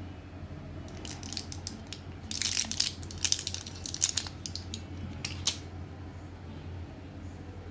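Packaging of Lianhua Qingwen capsules being handled: a run of sharp crackles and clicks, thickest about two to four seconds in and ending with a last click after about five seconds, over a steady low hum.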